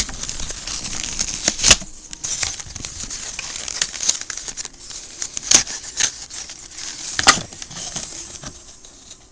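Packaging crinkling and rustling as it is handled, busiest in the first two seconds and thinning out later, with three sharp clicks spread through it.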